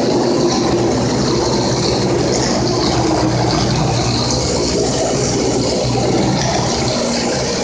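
Rotary tile-and-grout spinner tool spraying water onto tile and vacuuming it back up: a loud, steady hiss of spray and suction.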